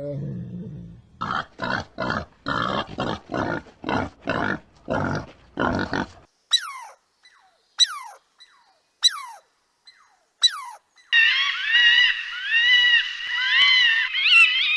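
A sequence of animal calls: about ten quick rough grunts in a row, then five sharp shrill calls each falling fast in pitch, then a run of high, wavering calls.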